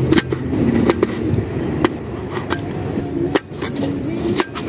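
A kitchen knife is slicing chili peppers and calamansi on a cutting board, and the blade taps sharply and irregularly against the board. A steady low rumble runs underneath.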